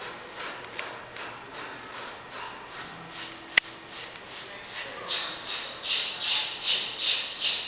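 Rhythmic swishing hiss from a choir group, about two and a half even strokes a second, starting about two seconds in and growing louder, with one sharp click near the middle.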